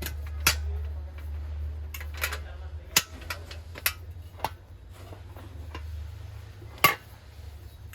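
Brass kitchen vessels being handled, giving a few separate sharp clinks and knocks of metal, the loudest near the end, over a steady low hum.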